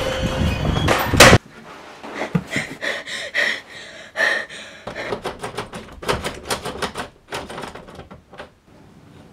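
A loud dense noise cuts off abruptly about a second in. Then come quick, irregular clicks and knocks of a door's knob and lock being rattled, bunching into a rapid clatter in the middle.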